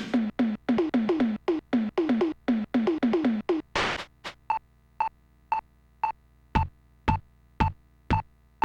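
Sampled drums from the Dynamic Drums program on an Amiga 500, played live. A fast fill of tom hits falls in pitch, then a crash near the middle. After that comes a steady beat of about two hits a second, with a ringing higher-pitched hit and kick drum toward the end, and it cuts off suddenly.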